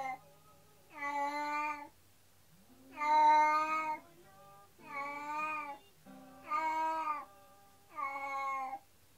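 Domestic cat meowing over and over: five long, drawn-out cries, about one every second and a half. These are a cat left alone calling out, cries the owners hear as grief for its housemate.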